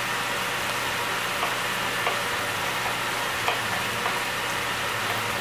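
Diced chicken and bacon sizzling in hot fat in a stainless steel pot: a steady frying hiss with a few small pops.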